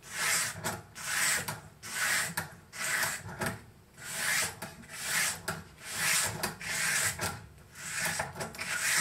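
240-grit sandpaper on a foam-backed sharpening stone, drawn across a knife edge clamped in a fixed-angle sharpening jig: about ten scraping strokes, roughly one a second.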